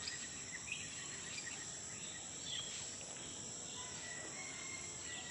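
Birds chirping in short, scattered calls over a steady high-pitched insect drone and background hiss.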